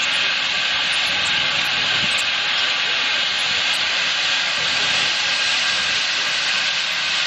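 Steam hissing steadily from a standing 1923 ALCO narrow-gauge steam locomotive, an even, unbroken hiss with no chuffing.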